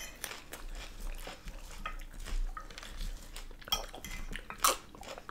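Eating sounds of salad being chewed, with a fork clicking and scraping against a glass dish in short, scattered clicks, two of them sharper near the end.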